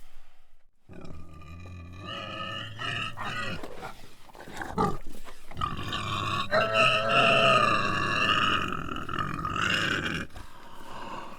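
Agitated pig grunting, with short choppy grunts for the first few seconds, then a long, higher-pitched squealing call from about halfway in that breaks off near the end.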